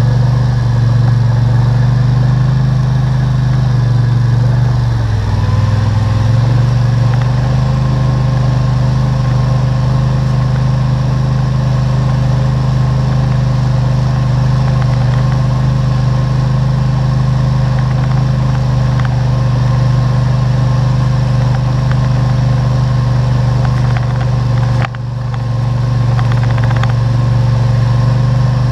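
ATV engine running steadily, close to the microphone, its pitch dipping and coming back up about five seconds in, with a short sudden drop in level near the end.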